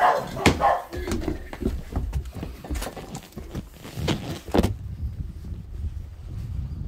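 Children's running footsteps, quick knocks on the floor and wooden deck, with a couple of short high shouts, one at the start and another a little after four seconds in. After that only a low rumble remains.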